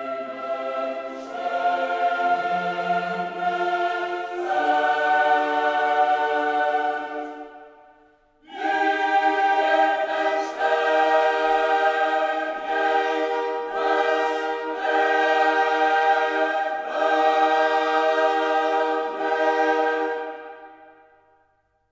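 A choir singing slow, held chords, with a short break about eight seconds in, fading out near the end.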